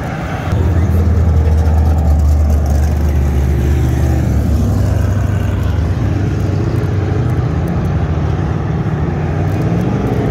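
Cars driving past close by. About half a second in, one car's engine and exhaust come in as a loud, low, steady rumble that holds for several seconds and then eases off slightly. Near the end another engine note rises in pitch.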